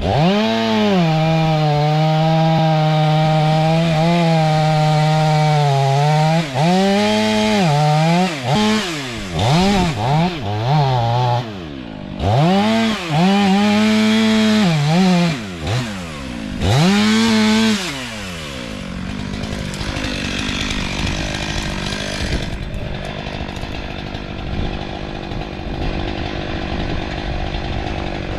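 STIHL MS 500i two-stroke chainsaw cutting wood: it holds a steady pitch under load for several seconds, then is revved up and down repeatedly. Near the two-thirds mark it drops to a quieter, steadier running sound.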